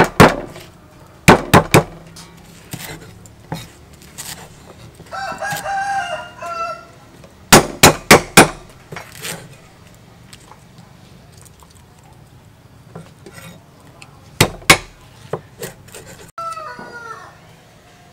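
Cleaver chopping lemongrass stalks on a wooden chopping block, sharp knocks in short clusters of two to four. A rooster crows once about five seconds in, and a fowl calls again near the end.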